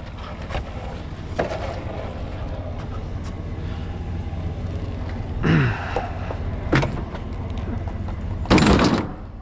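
Sheet-metal scrap appliances being shifted and stacked on a load: a few sharp knocks, a short scrape that drops in pitch, and near the end a louder, longer scrape and bang, over a steady low rumble.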